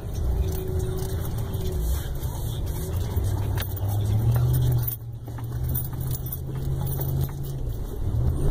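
Truck engine heard from inside the cab, pulling under load up a steep grassy slope, its drone rising in pitch a few seconds in and holding, with jangling and rattling clicks of the cab over the bumps.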